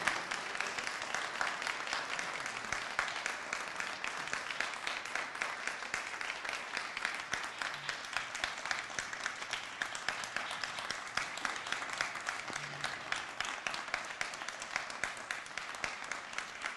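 Audience applauding: many hands clapping in a steady, dense stream, thinning a little toward the end.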